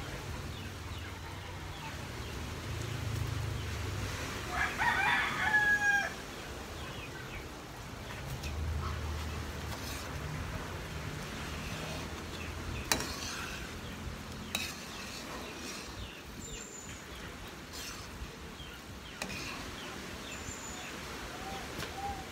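A rooster crows once, loudly, about five seconds in. Later a metal spoon stirs the thick, bubbling rice-and-jackfruit mixture in an aluminium pan, with a few sharp taps against the pan.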